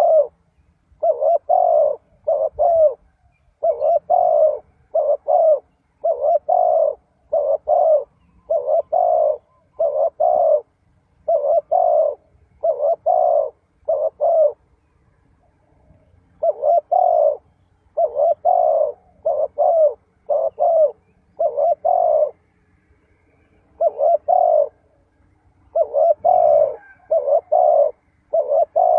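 Spotted dove cooing loudly and close by: phrases of two or three low coos repeated over and over, with a couple of short breaks.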